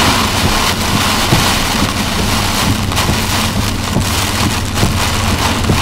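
Heavy rain hitting a moving vehicle's windshield and roof, heard from inside the cabin as a dense, loud hiss, over a steady low hum of the vehicle on the road.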